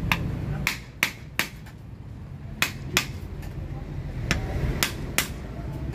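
Small hammer striking the metal housing of an automotive electrical unit being dismantled: about nine sharp metallic taps at irregular intervals, some in quick pairs.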